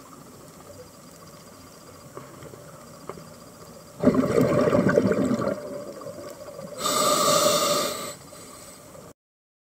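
Scuba diver breathing through a regulator, heard underwater: a loud rush of exhaled bubbles about four seconds in, then a hissier breath about seven seconds in, over a faint background with a few small clicks. The sound cuts off suddenly just before the end.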